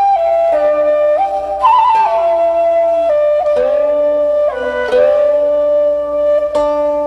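Slow instrumental background music: a flute melody of long held notes that step and slide in pitch, over a softer lower accompanying line.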